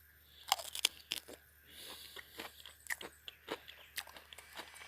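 A person biting into an unpeeled June plum (ambarella) and chewing it: a run of sharp, crisp crunches, the first about half a second in.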